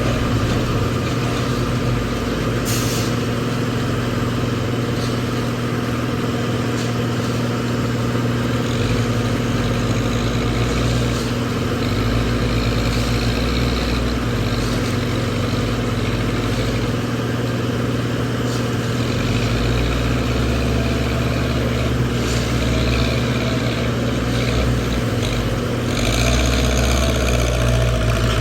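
Heavy diesel engine of a backhoe loader running steadily under load, with a brief hiss about three seconds in and more hissing and clatter near the end.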